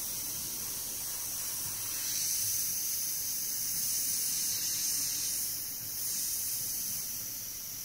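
Gravity-feed airbrush spraying paint, its compressed air giving a steady high hiss that grows louder about two seconds in and dips briefly near six seconds.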